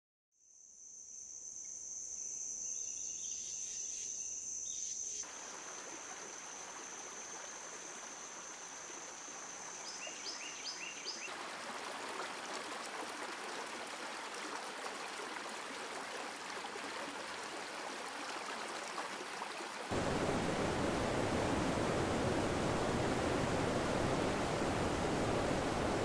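A steady high insect trill, with a few short bird-like chirps near the end of it, gives way about eleven seconds in to the even rush of the Salmon River flowing. About twenty seconds in this changes to the louder, deeper, fuller roar of water plunging over Shoshone Falls.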